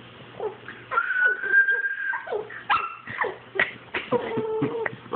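A person whistles one steady, slightly rising note for about a second, and a Boston terrier answers with short yips and whimpers, ending in a drawn-out howling whine.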